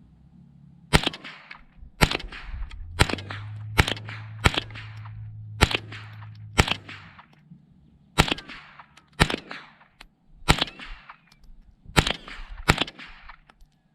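Tippmann M4-22 .22 rifle fired semi-automatically: about a dozen sharp single shots at roughly one a second, with a short pause about seven seconds in.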